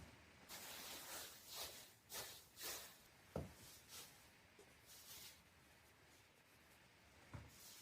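Faint hand-made foley sound effect: a series of irregular rustling swishes, with a soft low thump about three and a half seconds in.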